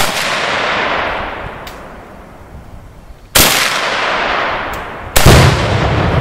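Two 7.62x39 rifle shots from an AKM about three seconds apart, each with a long rolling echo through the woods. About five seconds in, a third bang with a deep low rumble: the shot sets off the one-pound Tannerite target.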